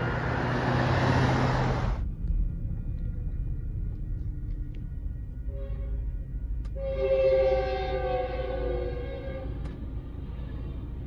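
A loud rushing noise cuts off abruptly about two seconds in. It gives way to a low rumble heard from inside a car waiting at a crossing. About seven seconds in, a Metrolink train's multi-note air horn sounds one held chord for roughly three seconds as the train approaches the crossing.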